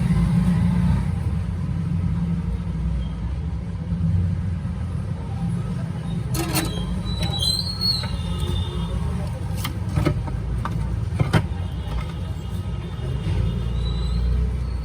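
Steady low rumble of road traffic, with a few sharp clicks scattered through the middle and a brief high squeal about halfway.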